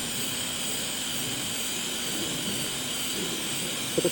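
Electric welding arc giving a steady hissing crackle. A short louder blip comes just before the end.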